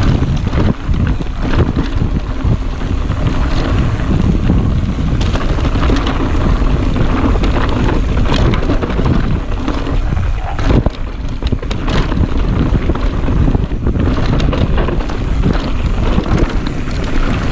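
Mountain bike riding fast down a rocky dirt trail: constant wind buffeting the microphone over the rumble of tyres on dirt and rock, with many short knocks and rattles from the bike hitting bumps.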